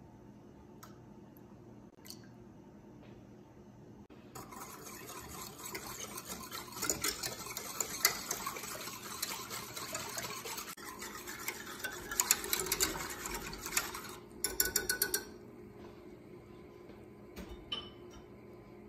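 A wire whisk stirring sugar and water in a stainless steel saucepan. From about four seconds in to about fourteen seconds the wires swish through the liquid and click against the pan. A quick run of sharp taps follows.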